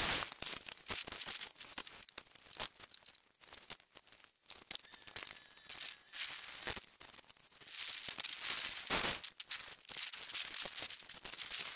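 Scattered light knocks and clicks of wooden boards and offcuts being handled and set down, with a brief louder rustle about nine seconds in.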